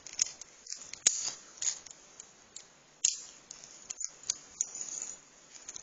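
Irregular small metallic clicks and scrapes of a lock pick working inside a Chubb padlock's keyway, with sharper clicks about a second in and again about three seconds in.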